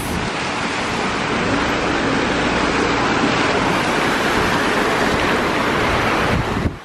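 Water jets of an outdoor fountain splashing steadily into its basin, a continuous rushing hiss that cuts off suddenly near the end.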